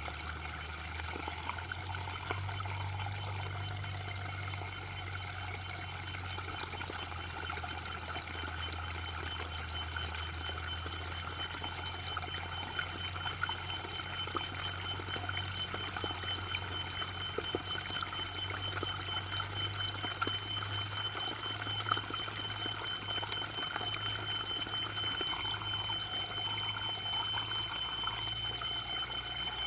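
Waterfall: water falling and splashing in a steady rush with a low hum beneath it. A thin, steady high tone comes in several seconds in and holds.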